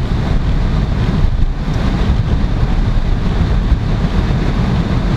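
Steady low rumble of a car driving on a wet road, heard from inside the cabin: engine and tyre noise with no sudden events.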